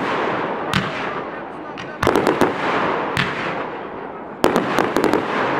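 Aerial fireworks shells bursting in a professional display. A single sharp bang comes under a second in, then quick volleys of bangs about two seconds in and again near the end, with a dense hiss fading away between them.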